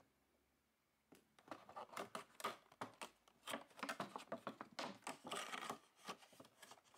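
Thin clear plastic toy box being handled and opened: faint, irregular crinkling and clicking of the plastic, starting about a second in.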